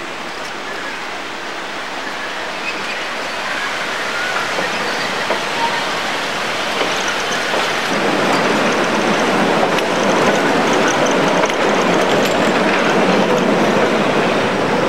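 Passenger train running behind a steam locomotive, heard from one of its coaches: steady running noise of the wheels on the rails, growing louder about halfway through.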